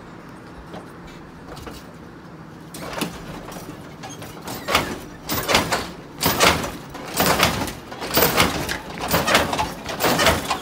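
Lowrider car hopping on its hydraulic suspension: repeated bouncing and clanking, about one a second, starting some three seconds in and growing louder.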